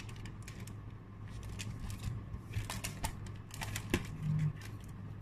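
Match Attax football trading cards being handled: scattered light clicks, taps and rustles of cardboard cards, with one sharper click about four seconds in, over a steady low hum.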